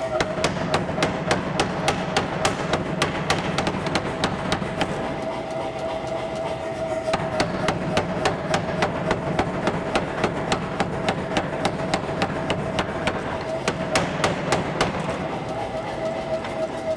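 Power hammer striking hot H13 tool-steel stock in a steady run of blows, about three to four a second, drawing out a taper, with a short lull near the middle. A steady machine hum runs underneath.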